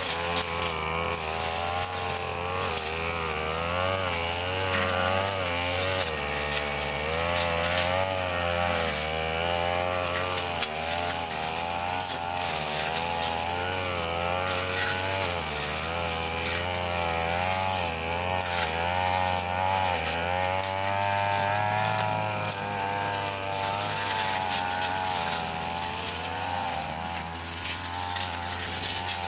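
Two-stroke brush cutter engine running continuously, its pitch rising and dipping again and again as the throttle and the cutting load on the blade change.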